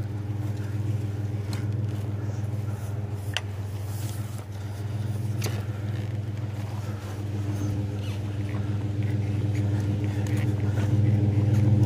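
Pickup truck engine idling steadily, growing louder toward the end, with a couple of light clicks from the metal tubing being handled.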